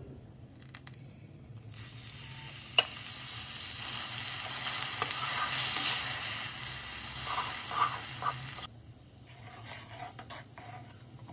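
Water poured into melted jaggery and ghee in a hot, heavy-bottomed metal kadhai, sizzling while a metal spatula stirs and scrapes the pan, with a couple of sharp clinks. The sizzle cuts off suddenly about nine seconds in, leaving quieter stirring and scraping.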